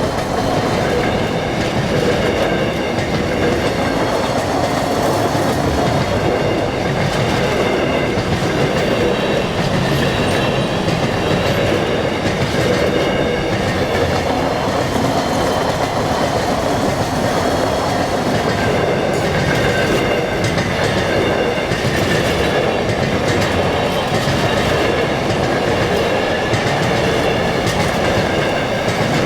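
A train rolling past at close range: a steady rumble of wheels on rails with a continuous clickety-clack over the rail joints and a high ringing from wheels and rails, steady for the whole time.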